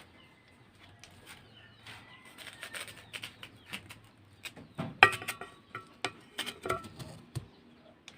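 Knife peeling a honeydew melon: irregular scraping and clicking of the blade, with a sharp clink about five seconds in that rings briefly.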